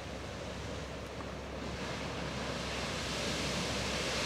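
Morning Geyser erupting: a steady rush of water and steam that grows louder about two seconds in.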